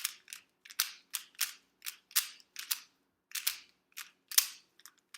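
Plastic speed cube's layers being turned by hand: a run of sharp plastic clicks and clacks at an uneven pace, about two or three a second.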